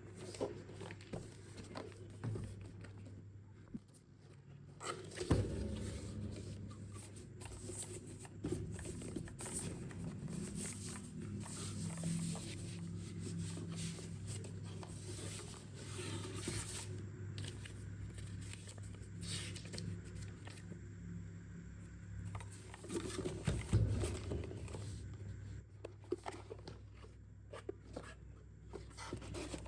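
Handling noises from a keyboard and its packaging: irregular clicks and knocks with scraping and rustling, busiest in the middle and with a louder knock near the start and another about three-quarters through. A steady low hum runs underneath.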